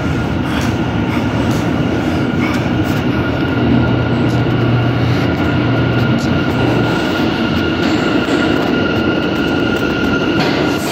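R179 subway train approaching through the tunnel and pulling into an underground station: a steady rumble of wheels on rail with a steady high whine above it.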